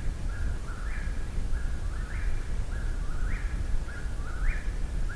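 Eastern whip-poor-will singing, its rhythmic whip-poor-will phrase repeated about once a second, each ending in an upswept note.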